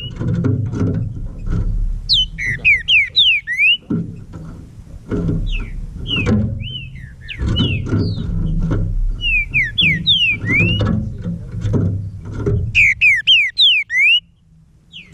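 Green-winged saltator (trinca-ferro) singing: about five phrases of quick whistled notes, each note sliding downward, spaced a couple of seconds apart. A low rumble of noise runs underneath and drops away about a second before the end.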